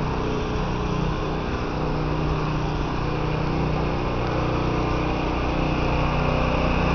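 Diesel engine of a coach bus idling steadily, a constant low hum that grows a little louder near the end.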